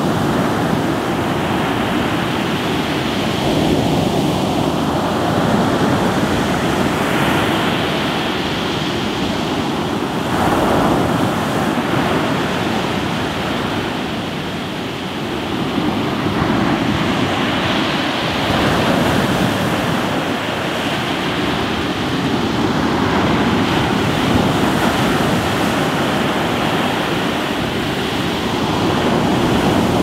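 Sea surf: waves breaking and washing up the shore in a continuous rush that swells and eases every few seconds, with a brief lull about halfway through.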